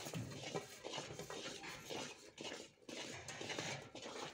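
Wooden spatula stirring and scraping thick jaggery syrup in a metal wok, with sesame seeds tipped in from a steel plate; irregular scrapes and light clatter.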